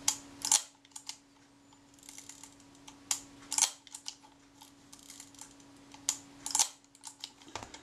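Small sharp mechanical clicks and snaps of a Kodak Retina IIC camera being cycled by hand, its film advance and shutter release worked in turn. The clicks come singly and in short clusters, densest about three seconds in. The camera is being cycled to test how far the frame counter steps with each advance.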